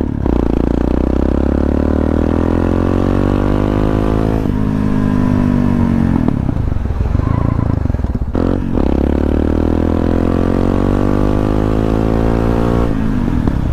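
Motorcycle engine running under load, its pitch climbing steadily in long pulls, with short drops about four and eight seconds in where the revs fall away before it pulls again.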